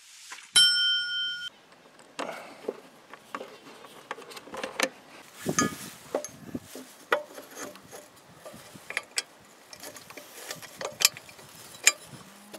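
Metal clicks, knocks and rattles of steel tiller tines being fitted by hand onto the rotor shaft of a Texas motor cultivator. A loud ringing metal clang about half a second in.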